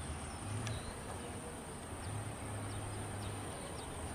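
Steady high-pitched insect drone over a faint low rumble, with a few short faint chirps.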